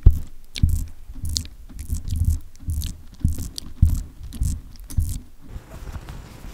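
Silicone spatula pressing and scraping sticky caramelised chopped almonds across parchment paper, crunching and crackling in repeated strokes about twice a second. Near the end the strokes stop and the paper rustles as it is lifted.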